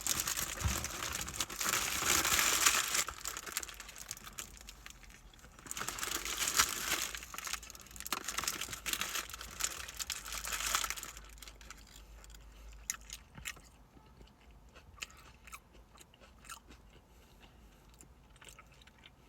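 A person biting into a Brisket Whopper burger and chewing close to the microphone, with louder crunching in two long stretches in the first half and fainter, scattered chewing clicks in the second half.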